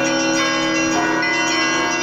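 Russian Orthodox monastery bells ringing together in a continuous peal, many bells of different pitches overlapping, with new strokes sounding over the ringing of earlier ones.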